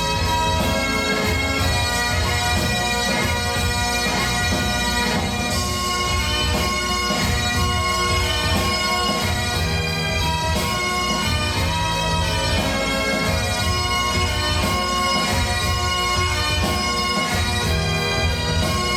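Great Highland bagpipes playing a melody over their steady drones, with pipe-band drums beating along.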